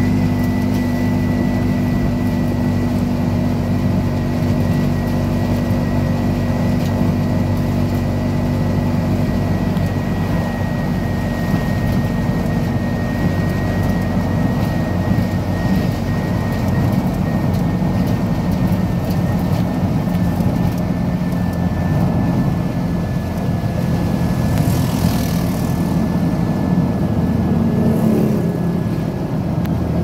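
A vehicle's engine running steadily with road and tyre noise, heard from inside the cabin while driving along a road, with a faint high whine above it. About 25 seconds in, a brief rush of noise.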